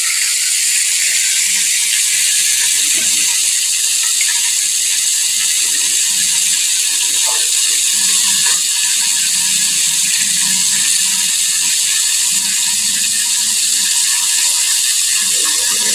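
Hot oil sizzling and crackling steadily around a whole chicken deep-frying in a small pot.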